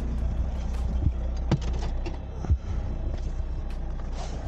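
A vehicle running on a rough road, with a steady low rumble and a few knocks and thumps. The loudest thump comes about two and a half seconds in.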